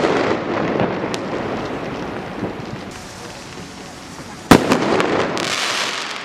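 Firework rockets bursting in the air. The tail of one burst fades over the first second. About four and a half seconds in, the next rocket's burst gives a sharp bang, followed by a few pops and a hissing crackle.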